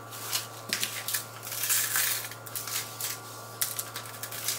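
Coarse rock salt poured from a cardboard box onto a mustard-coated prime rib roast, the crystals hitting the meat and foil in a rapid crackle of small ticks, then pressed on by hand with a gritty crunching rustle.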